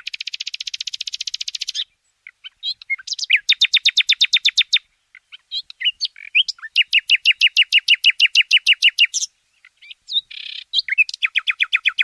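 Nightingale singing its mating song: about four fast trills of rapidly repeated high notes, the first a buzzy rattle, with short single notes and pauses between the trills.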